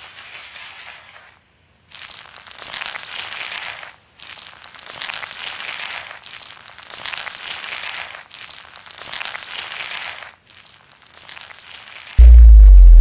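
Sound-design effect for an animation of fungal growth: a rough, crackly noise that swells and fades in waves about every two seconds, with brief silent gaps. About a second before the end, a very loud, deep drone starts suddenly.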